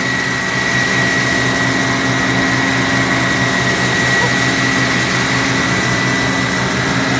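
Fire truck engine and water pump running steadily, a low drone with a constant high whine, under the even hiss of a hose stream spraying onto a burning aircraft wreck.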